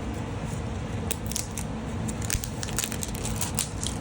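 Packaging being handled and opened by hand: a run of irregular crackles and small clicks.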